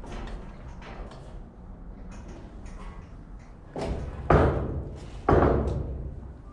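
Three sudden heavy bangs in the second half, the last two the loudest, each fading away over about a second.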